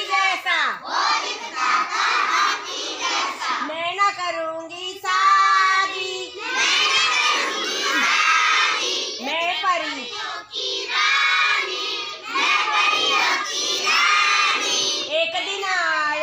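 A large group of young children chanting and singing loudly together in phrases, shouting out a game chant.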